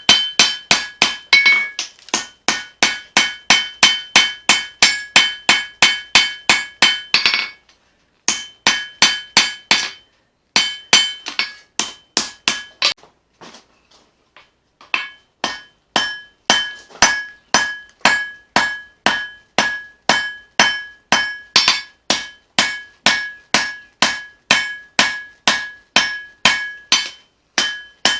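Hand forging: a hammer strikes steel leaf-spring stock on an anvil at about three blows a second, each blow ringing. Striking pauses briefly twice, then stops for about two seconds midway before the steady rhythm resumes.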